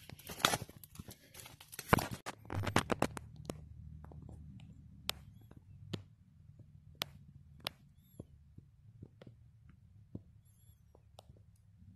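Crunching and clinking of a hand digging tool working through soil full of broken glass and debris for the first few seconds. After that it goes fairly quiet, with scattered single sharp clicks and snaps and a few faint high chirps.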